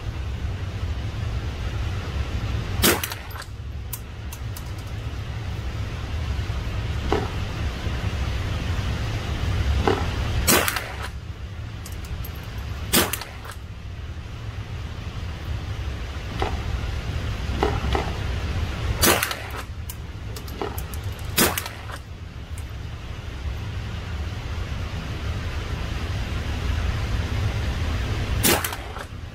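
Rifle fired repeatedly from a rest in an indoor range: six loud, sharp shots spaced a few seconds apart, with fainter cracks in between, over a steady low rumble.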